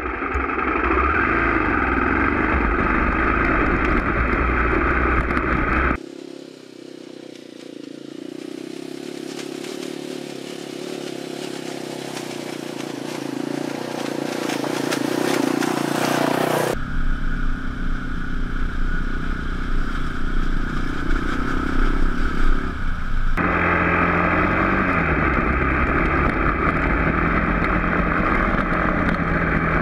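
Motorcycle engine running while being ridden, in several stretches cut together: the sound changes abruptly about six, seventeen and twenty-three seconds in. Near the end the engine's pitch rises and falls.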